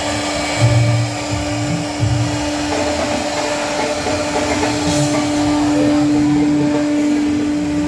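An electric motor running steadily, a constant hum over a loud hiss, like workshop machinery such as a dust extractor or router, with irregular low thuds underneath.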